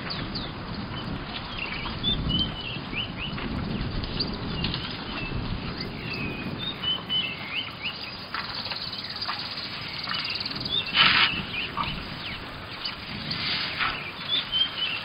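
Wild birds chirping in short, scattered calls, with a few brief noisy bursts, the loudest about eleven seconds in.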